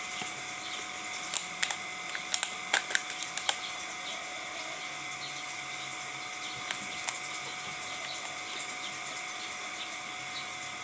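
Steady high-pitched insect chorus in the background, with a quick cluster of sharp clicks or taps between about one and three and a half seconds in and two more single clicks near seven seconds.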